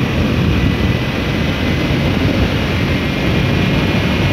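Wind rushing over the camera microphone of a Kawasaki Ninja 300 at riding speed, with the bike's parallel-twin engine running underneath.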